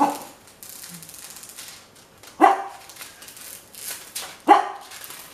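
A dog barking three times, about two seconds apart.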